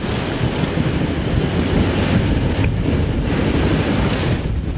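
Strong thunderstorm wind gusts carrying rain, buffeting the microphone with a loud, continuous rushing noise heaviest in the low end.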